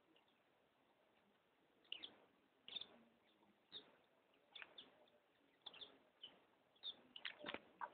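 A pleci (white-eye) giving faint short chirps, one every second or so, coming closer together near the end.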